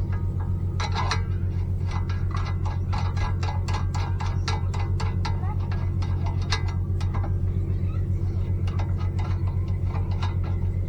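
A steady low mechanical hum with a fast even pulse, and many quick clicks and taps over it, thickest for the first several seconds and again near the end.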